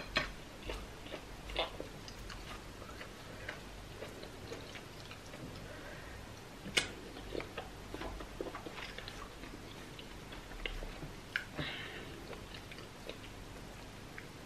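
Eating sounds of pounded yam with slimy okra soup taken by hand: quiet chewing, lip smacks and small sticky, wet clicks scattered through, with one sharper click about seven seconds in.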